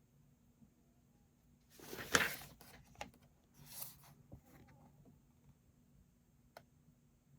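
Paper rustling as a book is handled: two short swishes, the first the louder, with a few light clicks between and after.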